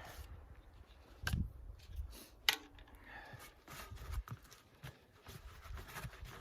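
Gloved hands handling and rubbing a stiff fireproof welding-cover fabric: rustling and scraping with a few sharp clicks, the loudest about two and a half seconds in.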